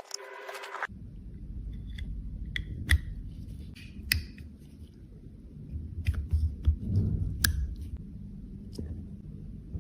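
Irregular sharp clicks and taps with soft handling noise, from makeup cases and tools being worked by hand.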